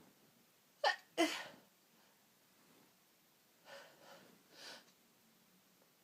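A woman sneezing: a quick voiced catch of breath, then a sharp, loud sneeze a moment later, about a second in. A few seconds later come three softer, breathy sounds.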